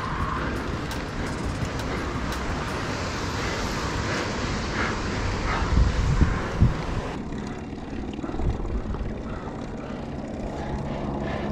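Wind rushing over an action camera's microphone on a road bike climbing a mountain road, with a few low buffets a little past halfway. The rushing drops abruptly about seven seconds in.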